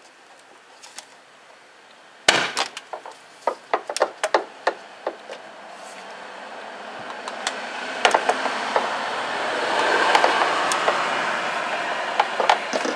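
Sharp clicks and knocks in quick succession, from the old lift gate gas struts' end sockets being pulled off their ball-stud posts. About six seconds in, a steady rubbing noise starts and builds, with a few more clicks scattered through it.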